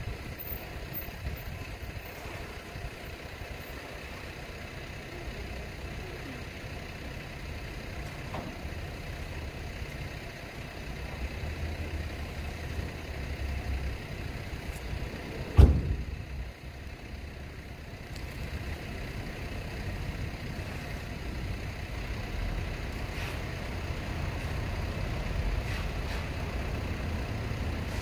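Steady low outdoor background rumble with no music, broken by one sharp thump a little past halfway.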